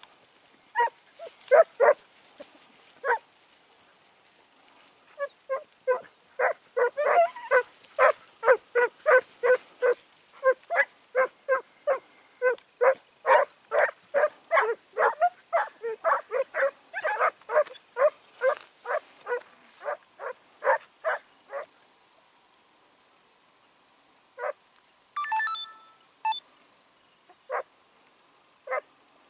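A pack of Segugio Italiano scent hounds giving tongue as they work a hare's scent: a long run of baying barks, about two a second and several voices at times overlapping, that thins out after about twenty seconds to a few single barks.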